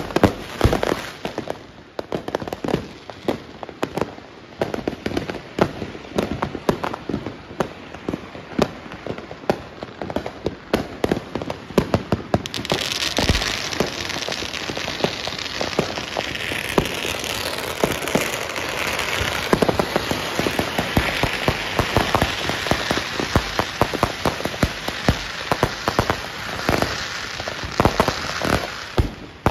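Neighbourhood fireworks: a dense, irregular run of bangs and pops from aerial shells and firecrackers. From about twelve seconds in, a continuous rapid crackle sets in under the bangs, as long firecracker strings go off.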